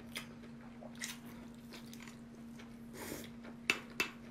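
Close-up chewing of lobster tail meat with scattered wet mouth clicks. Near the end come two sharp clicks as the lobster shell knocks against the ceramic dipping bowl. A steady low hum runs underneath.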